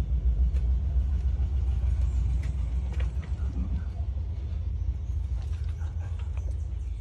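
A loud, steady low rumble with a few faint clicks over it, easing slightly toward the end.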